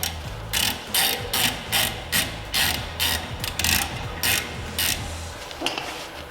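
Ratchet wrench clicking in quick repeated strokes, about two to three a second, as the brake caliper bolts are run back in.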